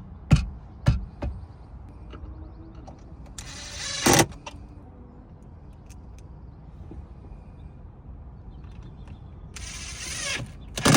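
Plastic interior trim panel being pushed back into place: a few sharp clicks at first, then a scraping rasp of about a second that ends in a knock, a second rasp near the end, and a loud snap as a clip seats.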